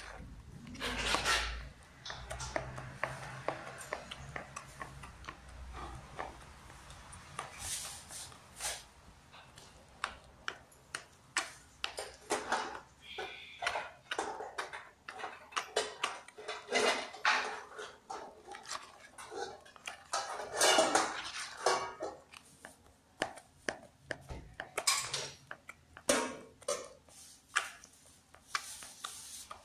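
A spoon scraping and knocking against a plastic bowl as thick tofu-meatball dough is stirred, in quick irregular strokes.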